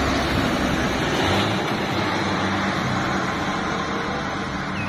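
Low-bed truck hauling an excavator driving past on an asphalt road and pulling away, with steady engine hum and tyre and road noise.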